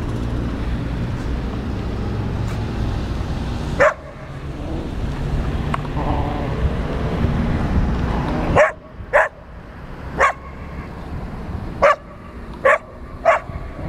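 Dogs at rough play, a Šarplaninac mix with younger dogs, giving short sharp barks and yips. One comes about four seconds in, then a quick string of five or six from about the ninth second on. A steady low rumble lies under the first two-thirds.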